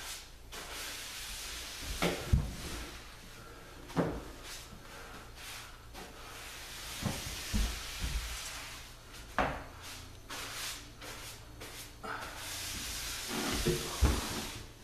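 A wide applicator brush swishing across a sanded wood floor as it spreads waterbased finish in passes, with a few sharp knocks and bumps, the loudest about two seconds in and near the end.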